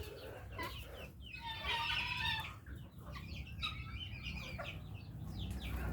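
Chickens clucking, with a run of short calls about two seconds in and scattered clucks after.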